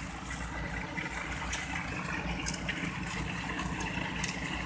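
Engine of a sand-suction dredge pump running steadily with a low, fast-pulsing hum, with a few faint sharp clicks over it.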